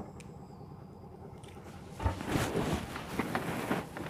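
A small inboard diesel boat engine running with a steady low hum, a sharp click right at the start. From about halfway, louder knocking and rustling of things being handled close to the microphone on the wooden boat.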